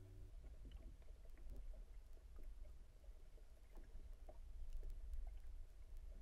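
Faint underwater ambience recorded by the submerged camera: a low steady rumble with scattered small clicks and ticks.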